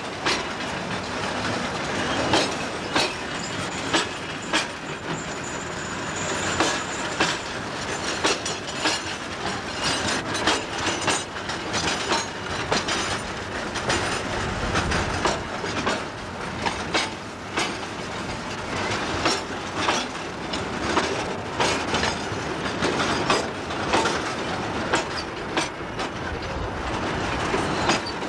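Loaded sugar-cane wagons rolling past close by: a steady rumble from the steel wheels on the rails, with many irregular clicks and clanks from the wheels and running gear.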